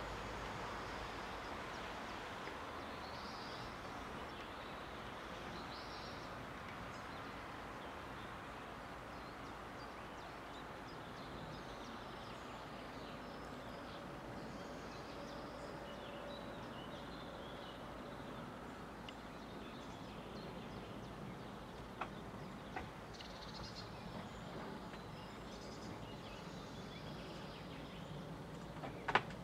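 Faint outdoor ambience: a steady low rush with faint bird calls now and then, and a few sharp clicks near the end.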